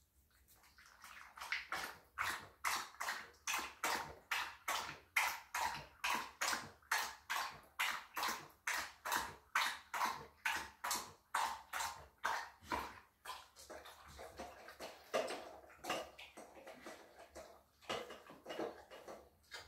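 Yellow Labrador retriever lapping water from a stainless steel bowl: a steady rhythm of wet laps, about three a second, turning slower and irregular for the last few seconds.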